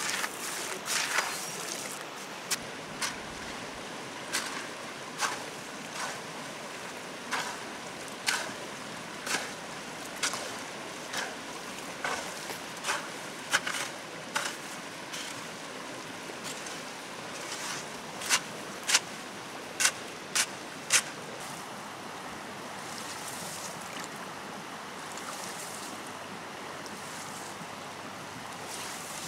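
A hoe chopping into wet riverbank gravel about once a second, over the steady flow of a stream; the strikes stop about two-thirds of the way through, leaving only the water.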